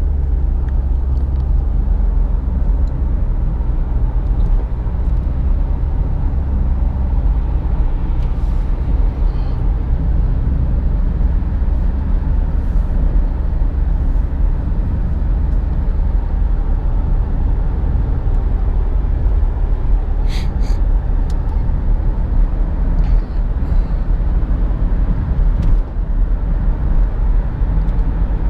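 Steady low road and drivetrain noise inside the cabin of a 2017 Nissan Rogue SUV being driven, with a few light knocks, two sharp ones close together about twenty seconds in.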